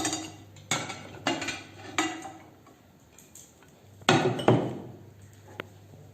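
Kitchen dishes and utensils clattering and clinking: a run of sharp knocks in the first two seconds, a louder pair about four seconds in, and one small click near the end.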